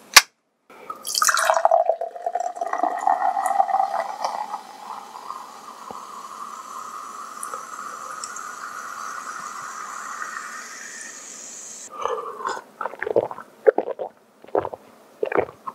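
A soda can's tab cracks open with a sharp pop, then carbonated soda is poured into a tall glass for about ten seconds, the pouring tone rising as the glass fills, over a fizzing hiss. Near the end come several gulps as it is drunk.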